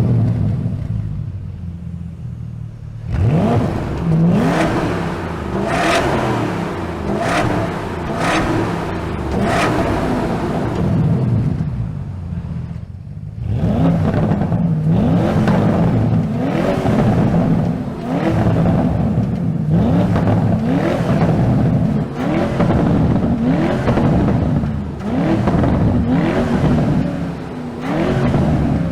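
Porsche Panamera's 4.0-litre V8 being revved again and again, the engine note climbing and falling about once a second.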